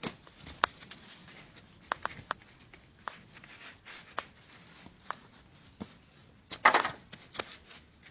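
Donkeys' hooves stepping on dry leaves and stony ground: scattered sharp clicks and knocks, with a louder rustling scuffle near the end.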